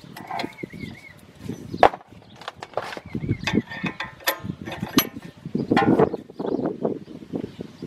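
Steel C-clamp on a car's front brake caliper being backed off after pushing the caliper piston in: irregular metal clicks, knocks and rattles as the clamp screw is turned and the clamp shifts against the caliper.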